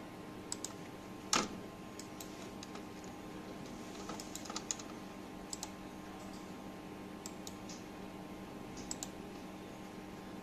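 Scattered, irregular clicks of a computer keyboard and mouse, one louder click about one and a half seconds in, over a steady faint electrical hum.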